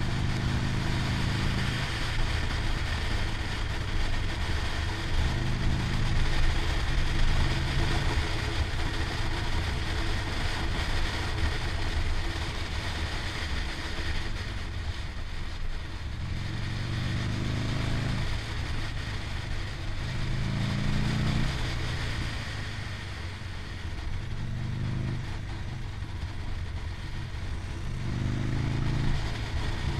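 Motorcycle engine running on the move, its revs climbing and dropping several times in the second half, under steady wind and road noise.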